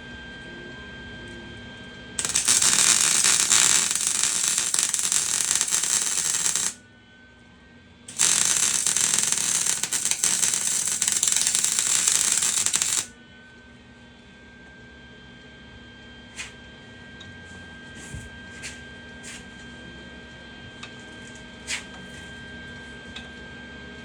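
MIG welder arc crackling in two runs of about four and five seconds with a short break between, over a steady electrical hum. A few light clicks and taps follow after the welding stops.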